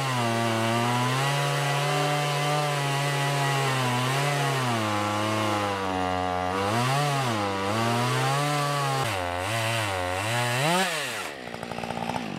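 Two-stroke chainsaw on an Alaskan chainsaw mill running at full throttle while ripping a board off a log, its pitch sagging and recovering several times as the chain loads up in the cut. Near the end the engine note climbs sharply as the saw breaks through, then drops away as the throttle is released, leaving a quieter rattle.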